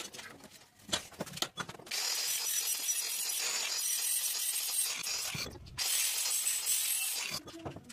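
Angle grinder disc grinding into a threaded steel pipe held in a bench vise, a harsh, loud, steady metal-on-abrasive screech starting about two seconds in. It breaks off briefly around five seconds, leaving a low rumble, then resumes and stops shortly before the end. A few sharp clicks and knocks come first.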